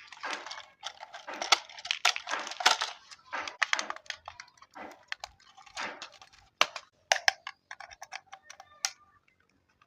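Plastic packaging rustling and crinkling in irregular bursts, with sharp plastic clicks and taps, thinning out to scattered clicks after about seven seconds.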